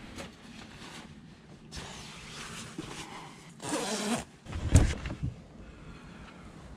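Camper side door being opened: a short zip-like rasp about three and a half seconds in, then a heavy thump a moment later as the door is unlatched and pushed open, with rustling of movement before it.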